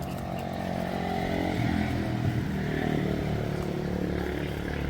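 An engine running, growing louder over the first two seconds or so and then holding steady.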